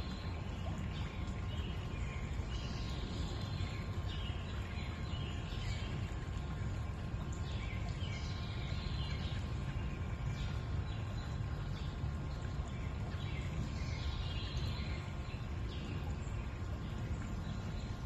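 Forest stream flowing steadily, with birds chirping in a few short spells over the water.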